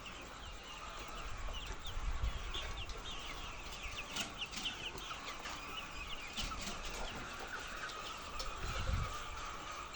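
A flock of laying hens clucking and calling, with many short overlapping calls. Two low rumbles come in, one about two seconds in and one near the end.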